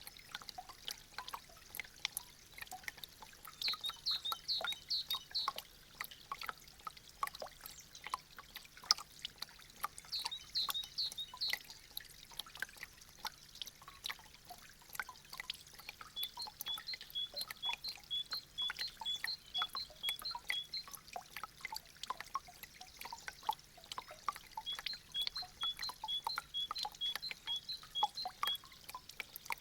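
Meltwater dripping steadily from melting icicles, an irregular patter of many drops at once. Several runs of high, evenly repeated chirping notes come in over it.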